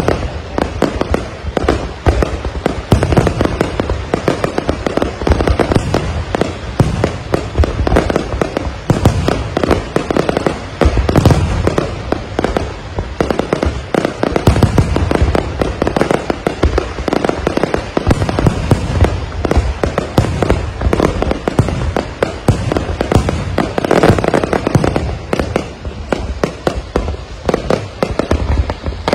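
Fireworks display: a dense, unbroken barrage of shells and rockets bursting, many sharp bangs in quick succession.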